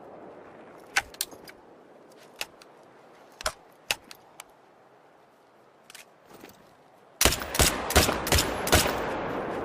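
AR-15 rifle shots: scattered quieter single cracks through the first half, then a rapid string of five loud shots near the end, about three a second, leaving a lingering echoing rumble.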